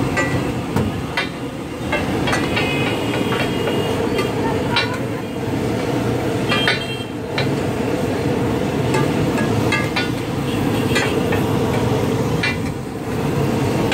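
Steady low roar from a gas-fired upside-down tawa stall and the street around it, with irregular sharp knocks and clatters of work at the stall.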